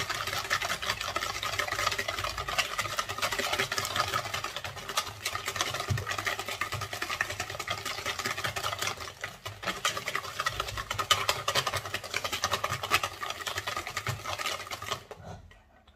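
Wire balloon whisk beating eggs and sugar by hand in a plastic mixing bowl: a fast, steady clatter and scrape of the wires against the bowl as the mixture is whipped until pale. It stops about a second before the end.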